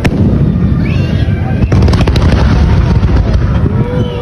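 Fireworks display going off: a continuous deep rumble of explosions with sharp bangs cutting through, the loudest at the start and just under two seconds in.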